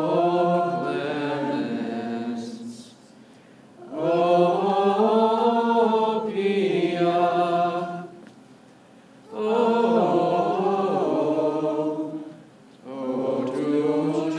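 Voices singing slow, held phrases of three to four seconds each, with short pauses of about a second between them.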